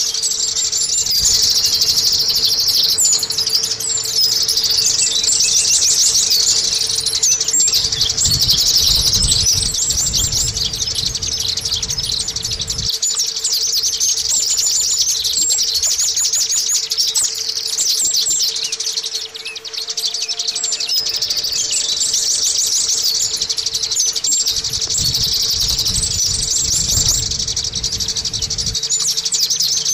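White-eye (pleci, Zosterops) singing a long, rapid, high-pitched twittering song, with a brief break about two-thirds of the way through.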